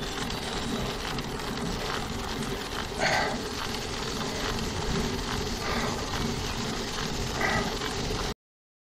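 Steady wind and road noise on a bicycle-mounted camera during a slow uphill ride, with three short, louder, sharp sounds about 3, 6 and 7.5 seconds in. The sound cuts off abruptly near the end.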